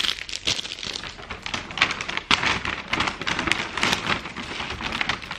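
Cellophane wrapping and a paper shopping bag crinkling and rustling as they are handled: a dense, irregular run of small crackles.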